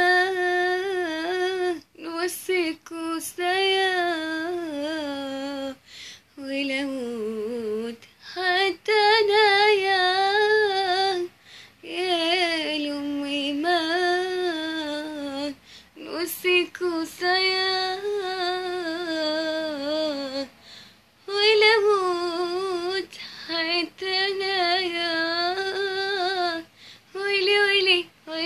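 A young woman singing an Arabic song unaccompanied, in long melismatic phrases with wavering, ornamented pitch, broken by short pauses for breath.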